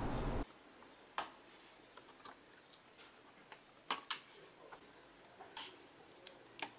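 Light clicks and taps, about eight, spread a second or so apart: a thin metal pick flipping open the latches of a laptop's ribbon-cable (ZIF) connectors and touching the metal keyboard plate.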